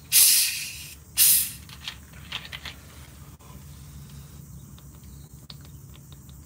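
Plastic bottle of carbonated cola being unscrewed: the gas hisses out in two loud bursts, then a few short, fainter hisses.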